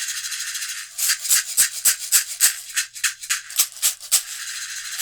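Woven basket shaker being shaken: a continuous rattle, then a run of separate sharp shakes about three or four a second, settling back into a steady rattle near the end.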